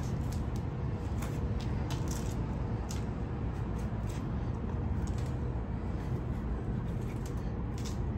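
Steady low rumble of city background noise, with a scattering of light clicks and rustles as a plastic nursery pot holding a rose bush is picked up and handled.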